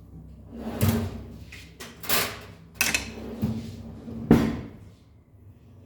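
Kitchen clatter: about five separate knocks and clunks of cookware and utensils being handled and set down.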